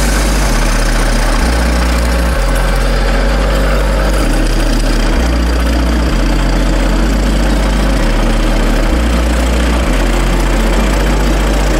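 Background music with a deep bass line that changes note about once a second, under a dense steady layer of noise.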